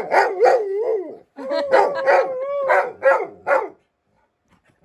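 Golden retriever vocalizing during play: a run of drawn-out, wavering calls that slide up and down in pitch, one held steady near the middle. The calls stop a little under four seconds in.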